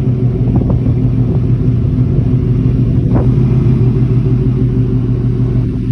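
Ford Mustang GT's 5.0 V8, with an X-pipe in its exhaust, idling steadily and loudly with a deep rumble just after being started.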